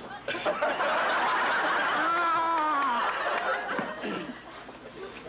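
Sitcom studio audience laughing at a gag: a swell of laughter that lasts about three seconds and then dies away, with one voice rising and falling above the crowd midway. The sound is dull, as on an old videotape copy.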